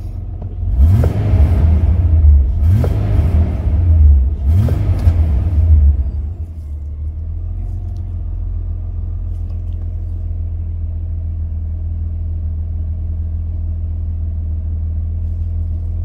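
Mitsubishi Pajero's 3.8-litre V6 engine revved up three times in quick succession, then settling about six seconds in to a steady, even idle. The idle no longer hunts or hesitates now that the faulty mass airflow sensor behind the P0100 code has been replaced.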